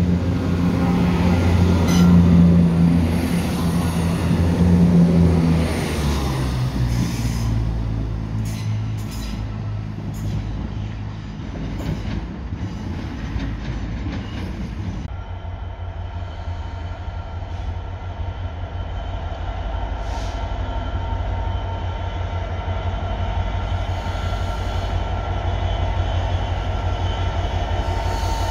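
A passenger train pulling out of the station platform, its low engine rumble strongest for the first few seconds and fading as it leaves. A steadier low rumble with a faint hum carries on after it has gone.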